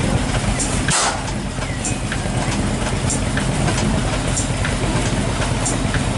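Large horizontal stationary engine with a big flywheel running steadily, with a fast low rhythmic chuffing and a light tick repeating about every one and a quarter seconds. A brief rush of noise about a second in.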